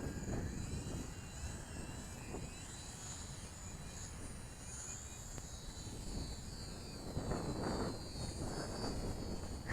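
Faint, wavering whine of the micro RC P-38's twin electric motors and propellers as the model flies about, over a steady low wind rumble on the microphone.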